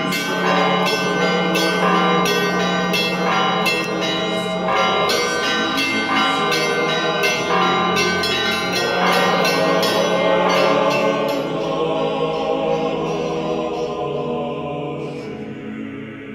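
Church bells rung in quick, irregular strikes over a sustained choral chord. The strikes stop about two-thirds of the way through, and the held sound then slowly fades out.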